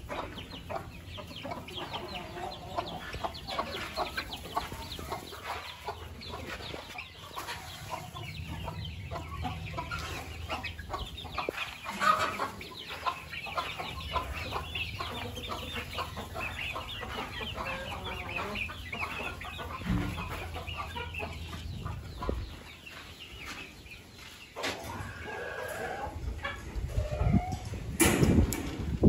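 A flock of country chickens, Kadaknath and Aseel breeds, clucking and calling together in a shed. A few loud knocks come near the end.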